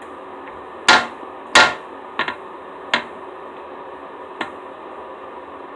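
Sticky slime being handled: about six sharp pops and smacks, the two loudest within the first two seconds, then a quick double pop and two fainter ones.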